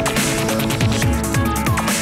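Background electronic music with a fast beat and deep bass notes that slide down in pitch, repeating several times.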